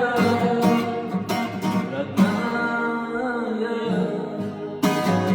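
Acoustic guitar strummed in a steady rhythm, playing out the end of the song.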